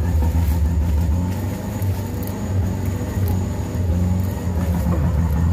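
Diesel dump truck engine working hard as it climbs a slick muddy slope, a steady deep drone.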